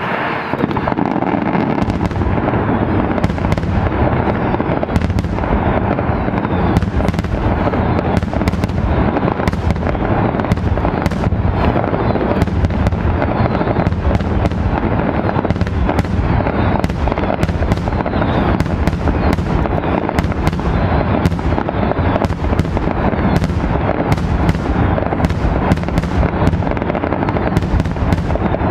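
Fireworks display fired from ground batteries with shells bursting overhead: a dense, unbroken run of bangs, several a second, over a continuous crackling rumble.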